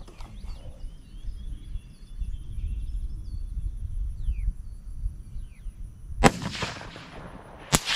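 A .204 Ruger Savage 110 bolt-action rifle fired once about six seconds in, a sharp crack that rings off briefly. About a second and a half later comes a second, fainter sharp crack with a long trailing decay. Faint bird chirps and a low wind rumble come before the shot.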